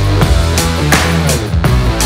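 Loud background music with a steady drum beat of about two to three hits a second.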